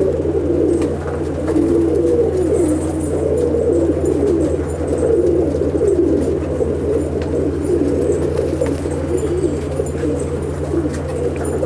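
Many Andhra pigeons cooing at once in a loft, their calls overlapping in a continuous warbling chorus over a steady low hum.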